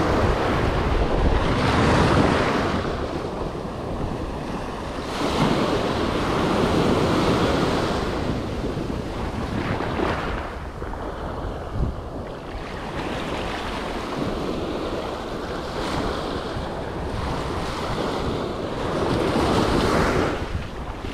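Ocean surf breaking and washing up a sandy beach, the rush swelling and falling every few seconds, with wind buffeting the microphone.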